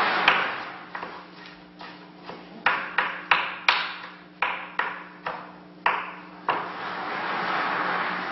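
About a dozen sharp knocks struck on a tabletop at an uneven pace, each with a short ring, hardest in the middle. A rushing hiss swells near the end, over a steady low hum.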